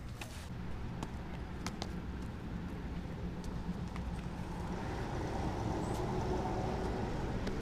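A motor vehicle passing on a road: a steady low engine and tyre rumble that grows louder from about halfway through. A few light taps come over it.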